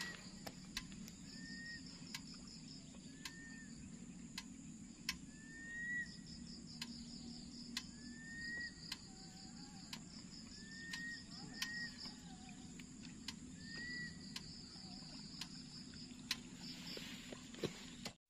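Faint evening insect chorus by the water: a steady high trill in pulses. A short whistled call, rising then falling, repeats about every second or two. Scattered sharp ticks and a low steady hum sit underneath.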